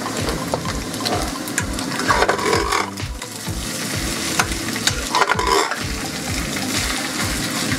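Egg and cabbage frying in a nonstick pan, sizzling while a metal spatula stirs and scrapes through it, with short taps of the spatula on the pan and two louder stirring strokes, about two seconds in and again about five seconds in.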